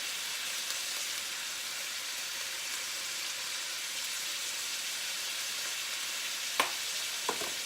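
Vegetables frying in oil in a wok, a steady sizzling hiss, with a couple of sharp clicks near the end.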